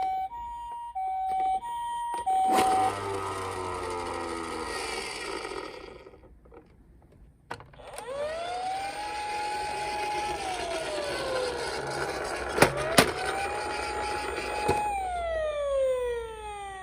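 Emergency-vehicle sirens: first an ambulance-style two-tone hi-lo siren alternating about twice a second, which breaks off after a few seconds into a falling, fading sound. After a brief lull comes a fire-engine-style wailing siren that rises, holds and falls twice, with two sharp clicks between the wails and falling tones near the end.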